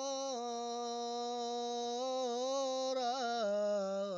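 Solo voice singing an Urdu devotional naat, holding one long note that wavers slightly, with a quick ornamental turn about three seconds in before stepping down to a lower note near the end.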